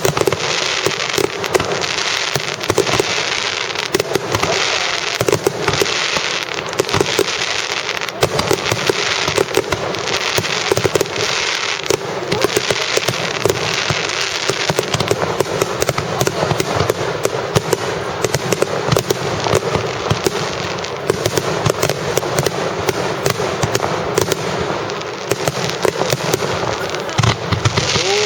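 Fireworks display: a dense, continuous barrage of bangs and crackling shell bursts with no pause.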